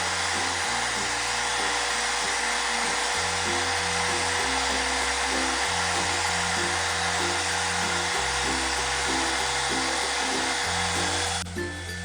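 Electric paint spray gun running steadily, a hiss with one steady hum-tone in it, cutting off suddenly near the end. Background music with a stepped bass line plays underneath.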